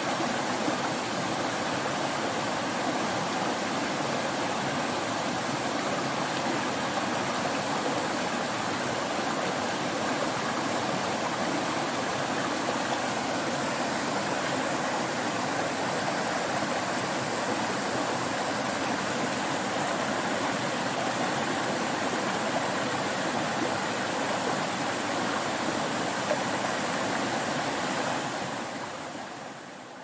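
A shallow rocky stream rushing and splashing over stone slabs in a steady flow, fading out over the last couple of seconds.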